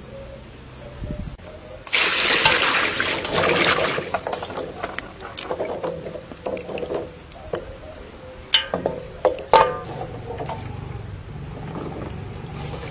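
A rush of water for about two seconds, then hands splashing and rubbing small green fruits in a basin of water to wash them, with two sharp knocks about two-thirds of the way in.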